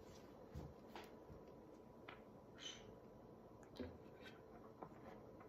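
Near silence: room tone with a few faint scattered taps and clicks.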